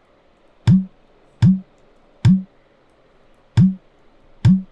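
Five loud, dull thumps at uneven intervals, each a short low knock with a click on top: heavy key presses on a laptop keyboard.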